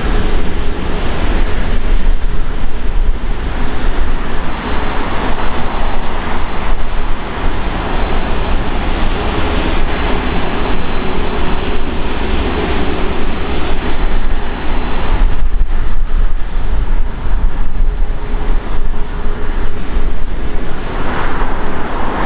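Jet engines of an Airbus A380, its four Rolls-Royce Trent 970 turbofans, running at taxi power. A steady, loud jet rumble, with a thin high whine heard through the middle of the stretch.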